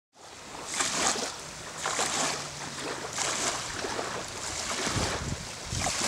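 Small waves lapping on a bay shoreline, each wash swelling and fading about every second and a bit. Wind buffets the microphone near the end.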